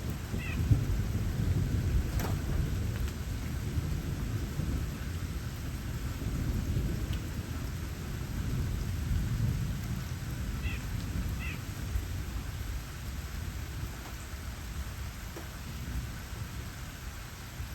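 Steady rain with a constant low rumble underneath it. A few short high chirps from small birds come through, once about half a second in and twice more around ten to eleven seconds in.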